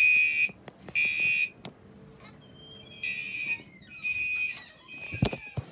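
Gentex fire alarm horn sounding in the temporal-3 evacuation pattern: three half-second blasts a second apart, a pause of about a second and a half, then three more. The last blasts are fainter, and a couple of knocks come near the end.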